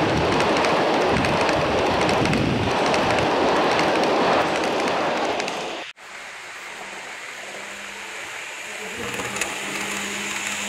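Model train rolling past close by, a loud dense rushing rattle of wheels on the rails that fades and cuts off about six seconds in. After that a quieter low steady hum, with another model train growing louder as it approaches along the track near the end.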